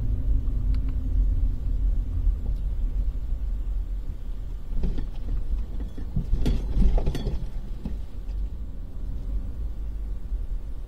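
Low, steady rumble of a 2010 Jeep Liberty driving slowly, its engine and tyres on pavement, with a few short bumps around the middle.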